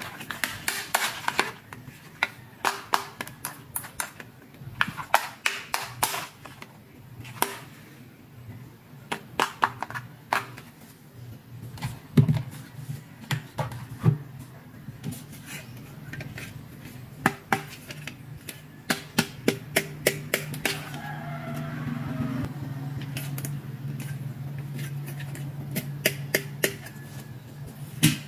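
Hard plastic doll shoes and toy accessories clicking and tapping as they are handled and set down on a table, in irregular clusters of sharp clicks. A low steady hum comes in during the second half.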